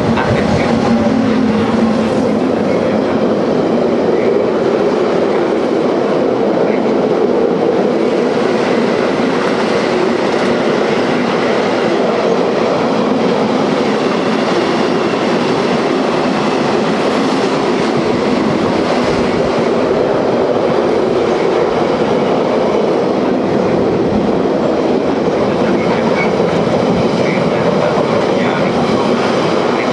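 A long train rolling steadily through the station, its wheels clicking over rail joints, with no let-up for the whole stretch.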